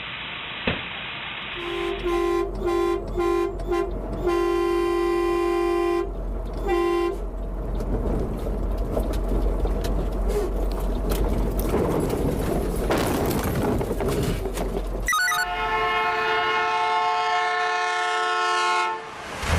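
Vehicle horn honking: a quick run of short blasts, then a long blast and one more short one. Rumbling traffic noise follows, and a second horn at a different pitch sounds steadily for the last few seconds before cutting off.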